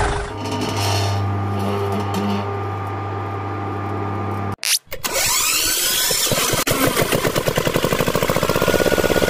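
Small electric motor running with a steady hum. After a short break just past halfway, a fast, even pulsing whir takes over.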